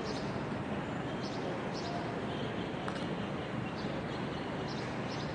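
City street ambience: a steady hum of distant traffic, with birds chirping briefly now and then.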